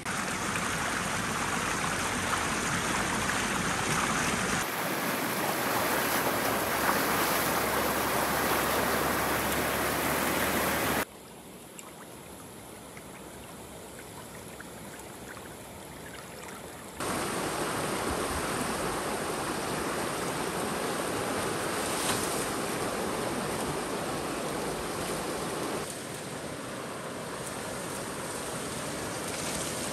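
Steady outdoor rushing noise, like running water or wind, in several stretches that switch abruptly from one to the next; it drops noticeably quieter for about six seconds in the middle.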